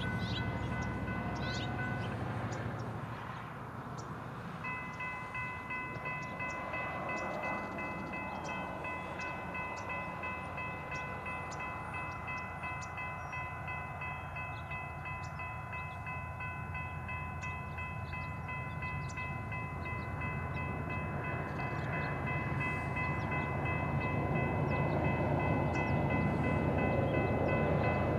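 Railroad grade crossing bell ringing steadily while an approaching train's rumble grows louder toward the end.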